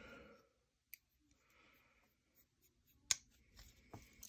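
Near silence broken by a few small sharp clicks from a folding pocket knife and small tools being handled on a work mat: a faint one about a second in, a louder one about three seconds in, and a few light taps near the end.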